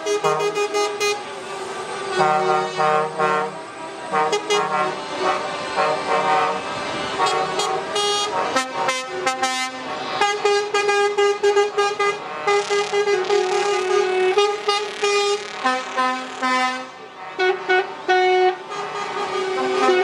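Lorry air horns sounding together in overlapping chords, some held and some in short repeated blasts, from a convoy of trucks passing at walking pace.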